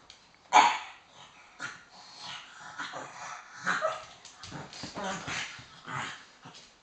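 Two pugs barking at each other: one loud bark about half a second in, then a string of shorter, quieter barks. It is a squabble between the dogs over a place on the sofa.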